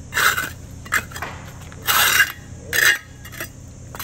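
Short scrapes and clinks of a steel mason's trowel working mortar and gravel at the base of a concrete slab, about six strokes, the longest about two seconds in.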